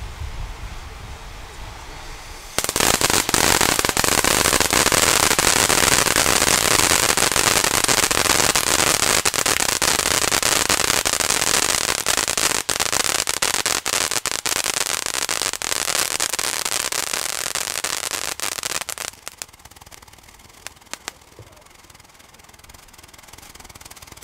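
Lesli Sutorobo Taki firework fountain burning: about two and a half seconds in it starts suddenly with a loud rushing hiss of sparks, thick with crackles, that holds for about sixteen seconds. It then dies away to a few scattered crackles.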